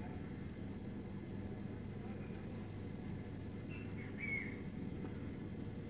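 A steady low background rumble with a few faint, brief bird chirps over it, the clearest about four seconds in.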